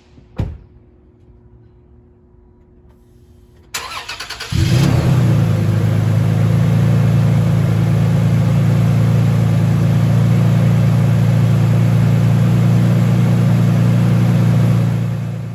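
A single thump about half a second in. Then a third-gen Toyota Tacoma's starter cranks briefly, and about four seconds in the engine catches and idles loudly and steadily through its MBRP exhaust, fading out near the end.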